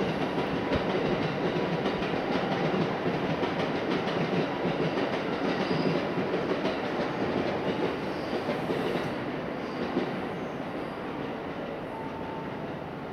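Shinkansen trains running through the station: a steady rumble of wheels on rail that slowly dies away over the last few seconds.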